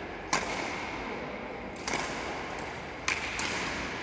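Badminton rackets striking a shuttlecock in a doubles rally: four sharp smacks, roughly a second and a half apart, the last two in quick succession.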